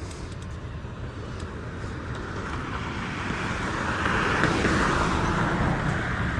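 Road traffic: a car passing by, its tyre and engine noise swelling to a peak about four to five seconds in and then fading, over a steady low rumble.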